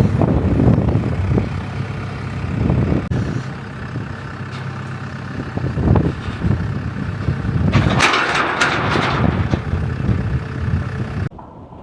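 Diesel engine of a digger working steadily, with knocks and clanks of steel barn framework being pulled down and a louder scraping, crashing burst of metal about eight seconds in. The sound cuts off abruptly near the end.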